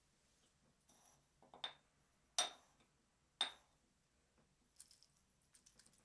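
A few light clinks of a metal spoon against glass dishes, about a second apart, with near silence between.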